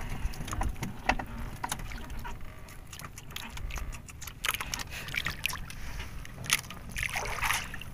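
Scattered clicks and knocks of fishing line, hook and gear being handled in a small wooden boat, over a low steady rumble.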